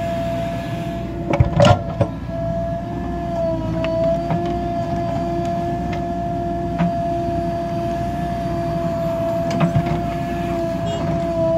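JCB backhoe loader working, its diesel engine running steadily under load with a constant whine on top, as the backhoe digs soil and dumps it. Sharp metallic knocks about a second and a half in, and again a couple of seconds before the end.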